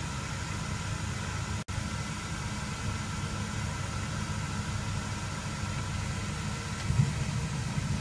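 A steady, low, engine-like rumble, like an engine idling. The sound cuts out for an instant about a second and a half in, and there is a short thump about seven seconds in.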